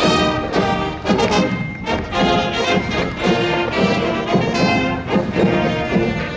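A high school marching band playing brass music, with trumpets and trombones over drum hits keeping a steady beat.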